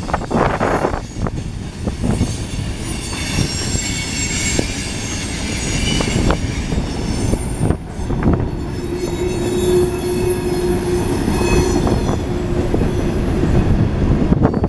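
Freight cars of a mixed freight train rolling past close by: a continuous rumble of steel wheels on rail with high-pitched wheel squeal. There are a couple of sharp clanks about eight seconds in, and a steady lower squeal through the second half.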